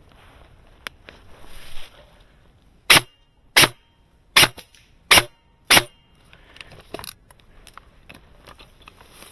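Five sharp airsoft gun shots fired one at a time, about two-thirds of a second apart, starting about three seconds in.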